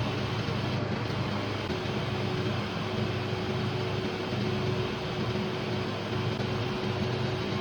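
Steady hum and hiss of CNC drilling machines for flexible circuit boards running, with a faint steady tone setting in about two seconds in.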